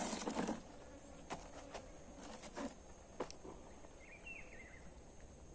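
Insects droning in a steady high pitch, with a short rustle at the start, scattered faint clicks and a brief chirp about four seconds in.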